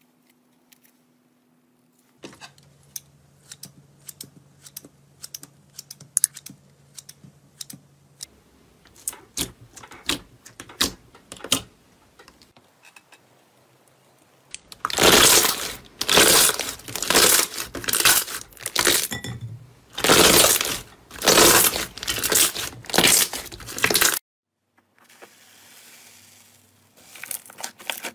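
Hands working slime: scattered soft clicks and pops at first, then, from about halfway, a run of loud wet squishes roughly once a second as glossy slime is stretched and pressed, cutting off abruptly near the end.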